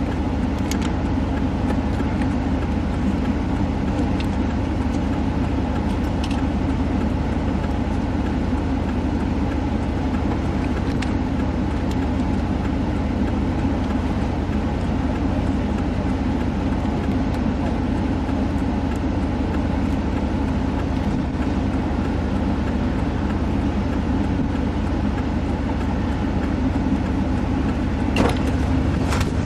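Motor vehicle engine idling, a steady low hum, with a short sharp knock near the end.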